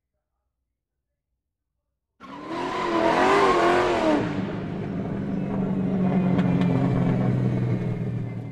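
Car engine sound effect starting suddenly about two seconds in: a hard rev with a wavering pitch, then a steady low engine drone that fades out at the end.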